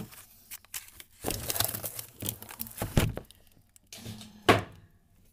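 Frozen food packages being shifted in a packed freezer: plastic wrap and cardboard crinkling and rustling in irregular spurts, with one sharp knock about four and a half seconds in.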